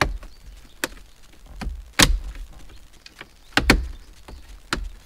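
Plastic dash trim clips of a Toyota Tacoma snapping into place as the trim panel is pressed back in: about five sharp clicks with dull thuds under them, the loudest about two seconds in.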